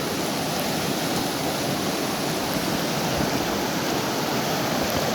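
Creek water rushing over a small waterfall: a steady, even noise.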